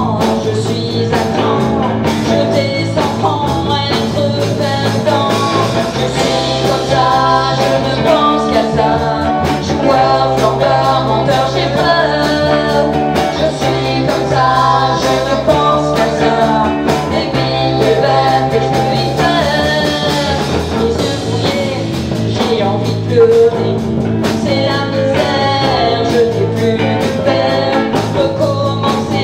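A woman singing into a handheld microphone over a live band playing a rock-blues song, with a steady bass line and guitar.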